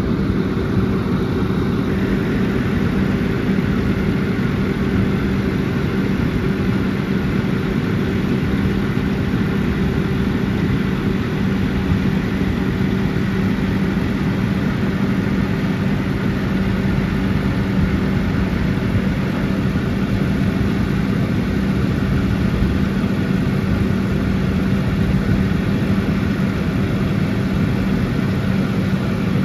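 Diesel engine of a 2013 Case IH Magnum 315 tractor running at a steady speed, a constant drone heard from inside the cab.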